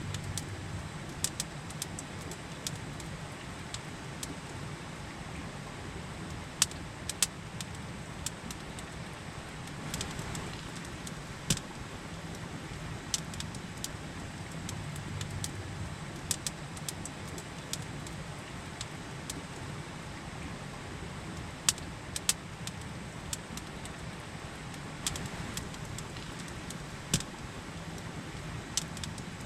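Campfire crackling, with sharp irregular pops and snaps over the steady rush of a river.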